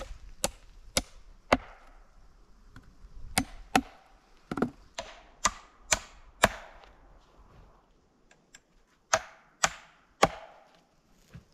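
Hammer driving nails into wooden boards to nail together a small box: sharp blows about two a second, in several short runs with pauses between.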